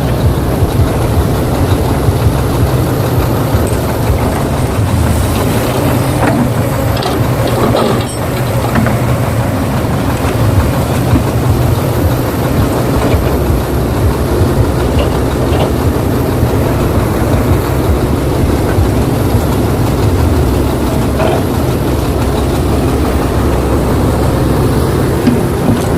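Heavy-vehicle engine sound running steadily: a continuous low rumble with a faint steady high whine above it.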